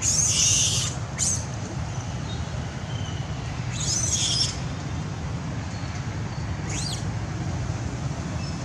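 Four short, high-pitched squeaky animal calls, each rising and falling in pitch, spread over several seconds above a steady low rumble.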